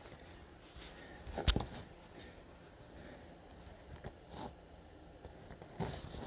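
Light handling noises on a tabletop: soft rustling and a few small clicks and taps, the sharpest about a second and a half in, as a paper colour chart and a small plastic bag of resin drills are handled.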